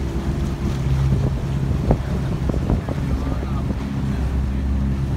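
Small boat's motor running steadily under way, with water rushing along the hull and wind on the microphone. A sharp knock comes about two seconds in.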